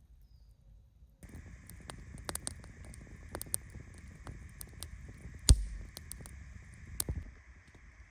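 Campfire crackling and popping over a steady hiss, with a louder knock about five and a half seconds in and another near seven seconds.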